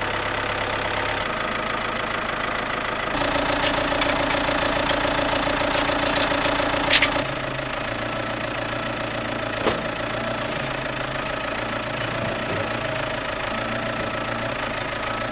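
Ford 755 backhoe loader's diesel engine running steadily. Its note rises and grows louder for a few seconds from about three seconds in, then settles back. There are two short sharp knocks, one around seven seconds in and one about three seconds later.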